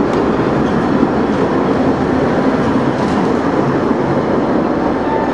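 Tatra T3 tram cars passing close by: the steady running noise of steel wheels on the rails and the running gear.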